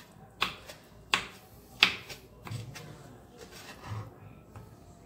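Knife cutting boiled pork on a chopping board: three sharp chops in the first two seconds, then lighter, fainter knocks.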